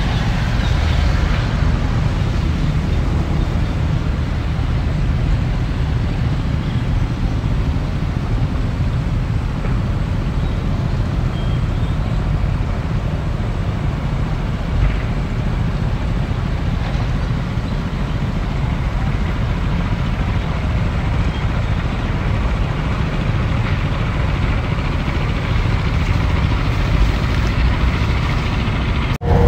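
Cat crawler excavator's diesel engine running with a steady low rumble as the machine works.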